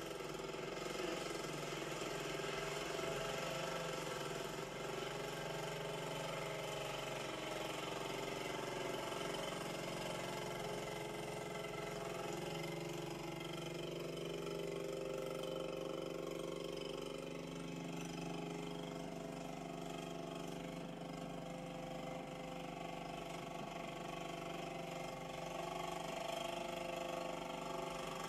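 Small quad bike engines running, their pitch rising and falling as the riders throttle on and off, heard through a television's speaker.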